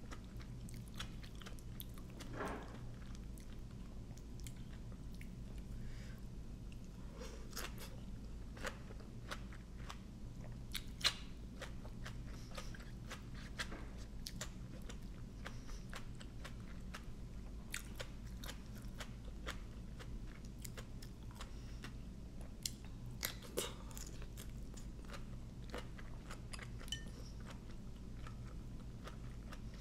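Close-up chewing of a mouthful of fresh lettuce and papaya salad: crisp crunching with many short mouth clicks. A steady low hum runs underneath.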